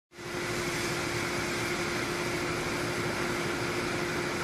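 High-pressure water jet from a cold-cutting fire-fighting lance running steadily: an even hiss over a constant pump hum.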